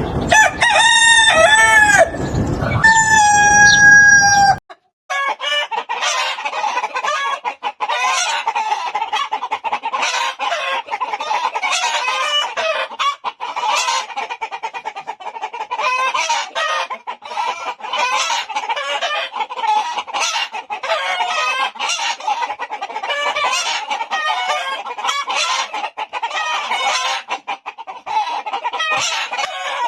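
Roosters crowing loudly in long pitched calls. After a sudden cut about four and a half seconds in, a flock of chickens clucks and calls continuously, many birds at once.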